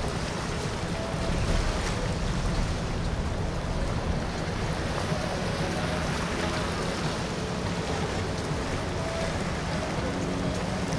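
Quad Mercury Racing 450R supercharged V8 outboards running at idle speed as the boat moves slowly: a steady low engine hum under water noise and wind on the microphone.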